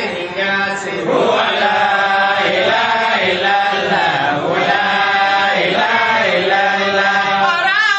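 Men's voices chanting Sufi dhikr in long, melodic phrases that rise and fall, with a brief break about a second in.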